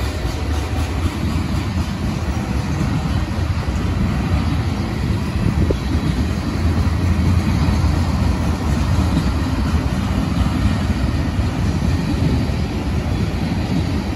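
Loaded ethanol tank cars of a freight train rolling past at steady speed: a steady low rumble of steel wheels on the rails.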